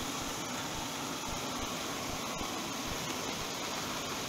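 Steady hiss of food cooking on the hob: chicken breast frying on high heat in a pan, with rice boiling alongside.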